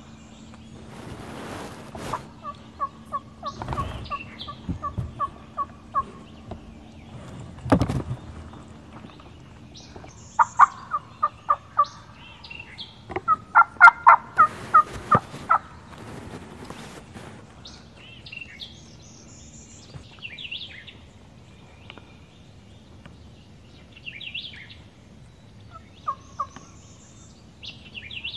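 Turkey calling: several runs of rapid, loud notes, the loudest about halfway through. Small birds chirp high above them, and a few knocks come in the first eight seconds.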